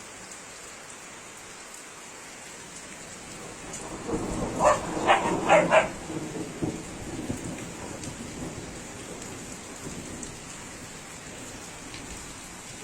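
Heavy rain falling steadily in a thunderstorm. About four seconds in, a rumble of thunder swells and fades, and a dog barks four times over it.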